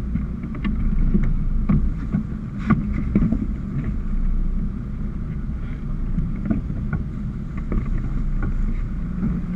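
Sport-fishing boat at sea: a steady low rumble of the boat and water against the hull, with scattered knocks and some wind on the microphone.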